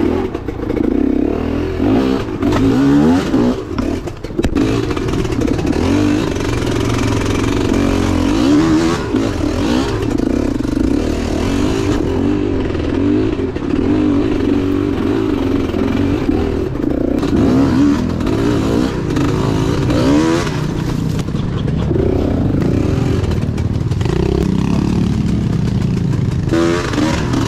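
Enduro dirt bike engine running at low speed, its revs rising and falling unevenly as the bike is worked over rocks and ruts.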